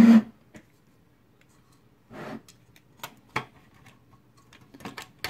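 A short loud burst at the very start, then scattered light plastic clicks and taps as a car radio's front-panel circuit board is handled and pressed into its plastic front panel, with a brief scraping rustle about two seconds in.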